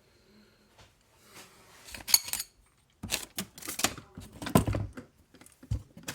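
Small metal parts and tools clattering and clicking as they are moved about in a search, with a brief metallic ring about two seconds in and a busy run of knocks and rattles after that.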